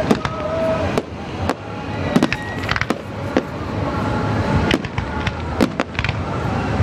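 Aerial firework shells bursting in quick, irregular succession: many sharp bangs, several a second at times, over a continuous crackle and rumble from the display.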